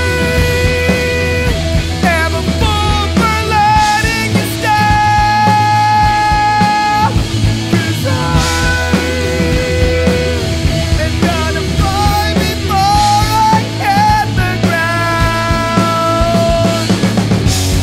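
Rock band playing a song: electric guitar, bass and drums under a sung melody of long held notes that bend and slide between pitches.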